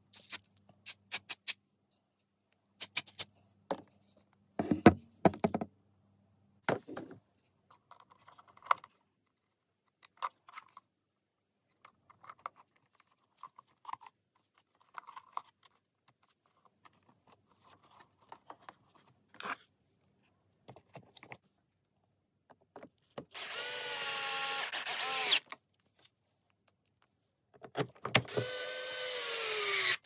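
Small clicks and scrapes of hand work on plastic and metal parts, then a power drill-driver run twice, about two seconds each, driving screws to close up a vacuum cleaner's housing; on the second run near the end its pitch slides down as it slows.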